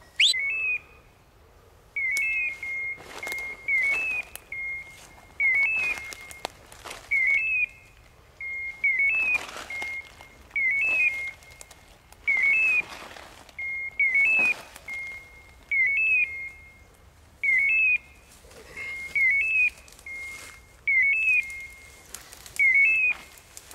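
Electronic beeper collar on a hunting dog, sounding over and over at a steady rate of about one signal every 1.3 s: each is a short rising chirp followed by a held high beep. A fast steady repeat like this is the signal a beeper collar gives when the dog stands still on point.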